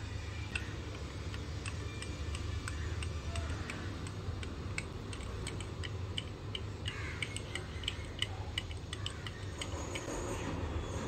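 Thin wooden stirrer clicking and scraping against the inside of a small glass jar as a thick cream mixture is stirred: irregular light ticks, over a steady low hum.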